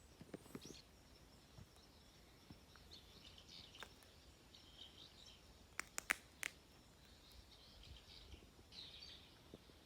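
Quiet woodland ambience with faint bird chirps now and then, and a quick run of three sharp clicks a little past the middle.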